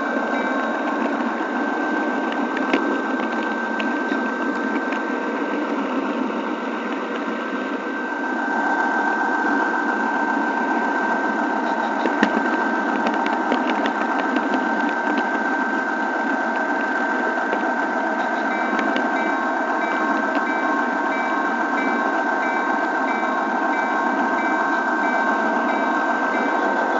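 Model train rolling along the track: a steady whirr of the small electric motor and wheels on the rails, with scattered clicks over the rail joints. It gets a little louder about eight seconds in.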